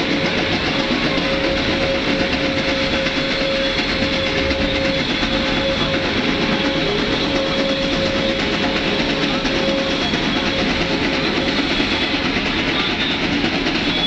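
Two geared Shay steam locomotives working hard upgrade: a dense, steady chuffing and rumble of exhaust and running gear heard from the train. A steady whining tone sounds over it and fades out about ten seconds in.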